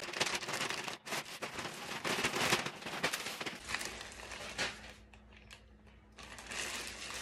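Clear plastic polybag packaging crinkling and rustling as packaged items are picked up and handled, in a long run of crackly rustle that eases off about five seconds in, then picks up again near the end.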